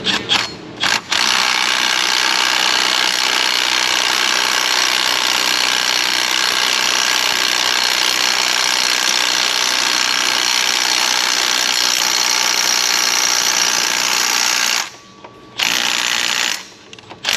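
Cordless mini impact wrench hammering a bolt in to press a pulley onto a power steering pump shaft. It gives a few short bursts, then a long steady run of about fourteen seconds, stops, and gives one more short burst near the end.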